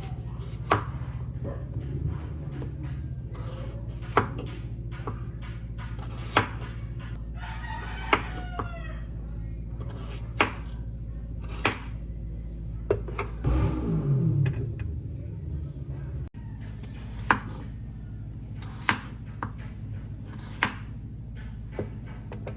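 A steady low hum with sharp knocks every one to two seconds. An animal call with a bending pitch comes about eight seconds in, and a louder sound falling in pitch comes near the middle.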